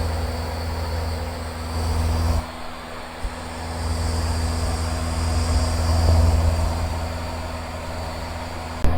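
Steady drone of a Van's RV-7's piston engine and propeller heard from inside the cockpit in cruise flight, dipping briefly about two and a half seconds in.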